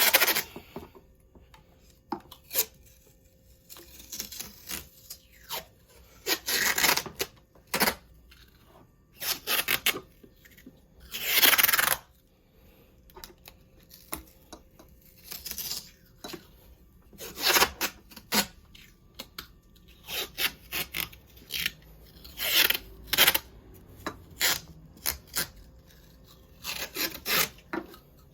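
Painter's tape being pulled off the roll and wrapped around a battery pack, in repeated rasping strips of varying length, the longest lasting about a second, among short clicks of handling.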